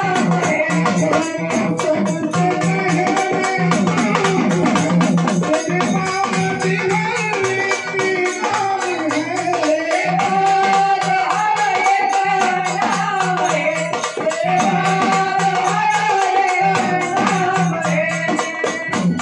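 A man singing a Marathi patriotic song with long held notes, accompanied by a steady, fast beat on a dimdi frame drum.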